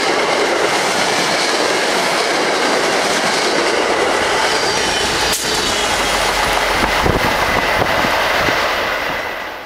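MBTA commuter rail train passing at speed: a loud, steady rush of wheels on rails with clickety-clack. A sharp knock comes about halfway through and a deeper rumble follows. The sound fades and cuts off suddenly at the end.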